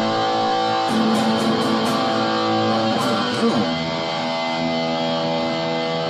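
Electric guitar played through a Metal End distortion pedal: chords struck and left ringing. A new chord comes in about a second in, and after a short slide in pitch another chord is struck at about three and a half seconds and held.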